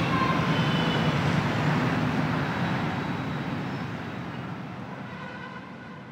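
City street ambience with traffic, steadily fading out over the second half.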